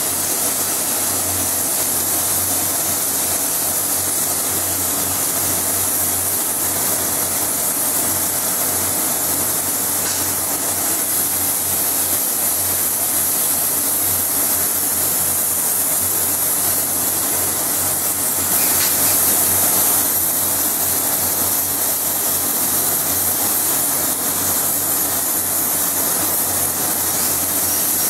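Steady hiss of a compressed-air spray gun spraying a finish, over the low hum of a running spray booth, briefly louder about two-thirds of the way through.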